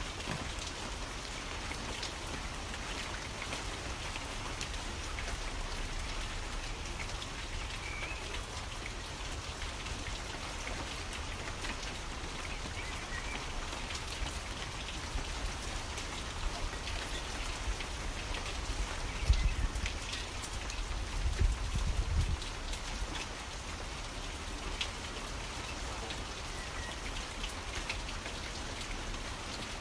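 Steady rainfall: an even hiss of rain with many individual drops pattering on a surface, and a few faint short bird chirps now and then. About two-thirds of the way through, a couple of low rumbling surges briefly rise above the rain.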